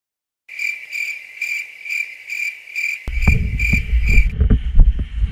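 Insect chirping in steady high-pitched pulses, about two a second, starting after half a second of dead silence and stopping a little after four seconds in. From about three seconds in, a low thumping rumble of movement and handling on the worn camera comes in under it.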